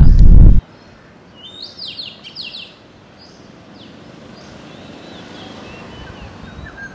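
A loud low rumble cuts off abruptly about half a second in. Then birds chirping: a quick run of short falling chirps in the first few seconds, followed by fainter scattered calls over a steady low hiss.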